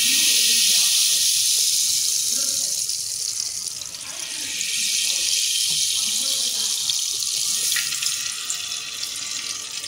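Palm oil poured from a bottle into a hot stainless-steel pot, sizzling with a steady loud hiss as it hits the hot metal and throws up steam.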